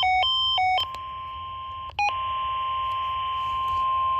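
A quick beeping that switches back and forth between two pitches for about the first second, then the steady 1050 Hz warning alarm tone of a NOAA Weather Radio alert, which drops out briefly about two seconds in with a short blip and then carries on.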